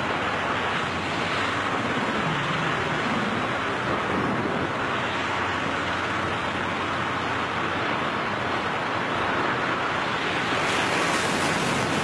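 Steady rushing wind of skydiving freefall, air roaring past the jumpers' camera microphones.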